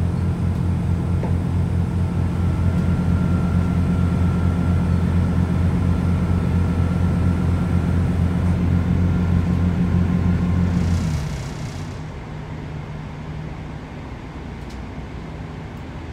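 Class 165 Networker Turbo diesel multiple unit under power, heard inside the carriage: a steady, loud drone from its underfloor Perkins diesel engine, with a faint high whine. About eleven seconds in, the engine throttles back and the sound drops to a quieter running noise as the train coasts, with a short hiss.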